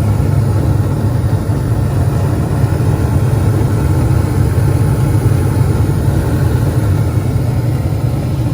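Gas furnace running with a steady low hum, its exhaust (draft inducer) fan going and the burners lit, now firing with the flame sensor and igniter reconnected.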